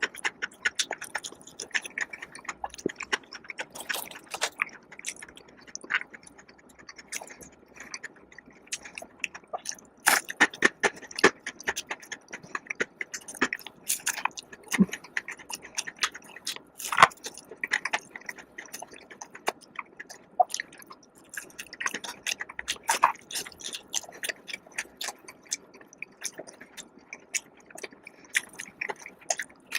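Close-miked chewing and biting of crispy fried food, a steady run of sharp crunches and crackles.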